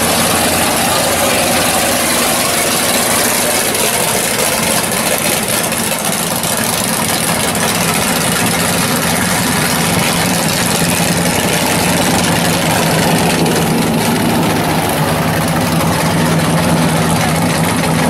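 A hood-scooped Pontiac drag car's engine idling steadily as the car rolls slowly away through the pits.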